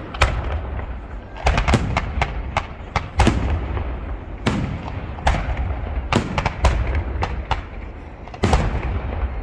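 Fireworks going off: a rapid, irregular series of sharp bangs, more than a dozen, over a constant low rumble of booms.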